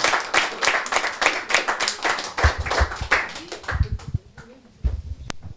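Small audience applauding, the clapping thinning and dying away about four seconds in, followed by a few low knocks and a sharp click near the end.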